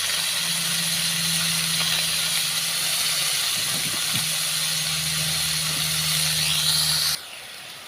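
Sliced beef frying in garlic oil in a pan, a steady loud hiss over a low hum. About seven seconds in, the hum and most of the hiss stop suddenly, leaving a quieter sizzle.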